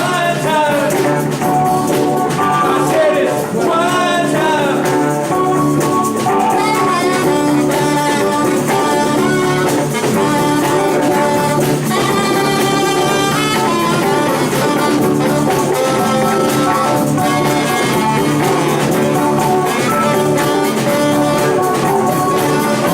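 A dance band playing loud, continuous music with horns and some singing.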